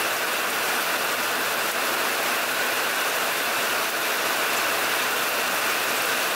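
Steady rain falling on canal water and thick foliage, an even hiss that stays at one level without breaks.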